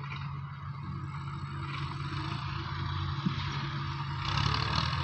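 Massey Ferguson 385 tractor engine and wheat straw chopper running steadily, with a low engine hum under a rushing machine noise that grows louder about four seconds in.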